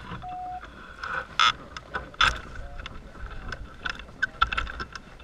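A short electronic beep just after the start, then scattered sharp clicks and knocks from the hang glider's aluminium frame and harness gear, the loudest two about a second and a half and two seconds in, with a light rustle of wind on the wing.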